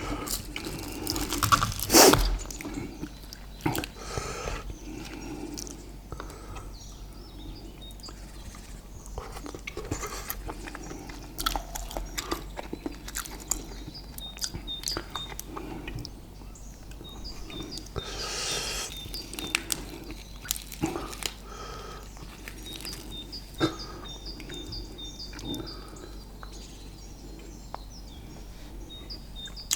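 Close-up chewing and crunching of food, with many short wet mouth clicks and crunches and a longer rustle a little past halfway. Small birds chirp faintly in the background in the second half.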